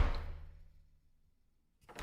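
The end of a door closing, its thud fading out over about the first second. Near the end a new door sound starts.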